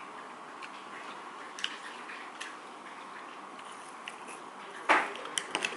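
A spoon clinking and scraping against a glass tumbler: a few light clicks, then a louder clink about five seconds in followed by several quick ones, over steady background noise.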